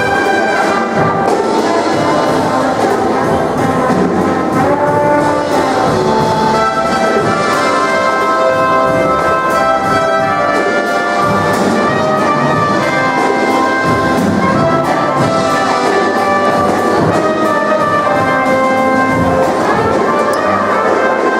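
Orchestral music with brass, trumpets and trombones playing held, sustained notes at a steady loud level.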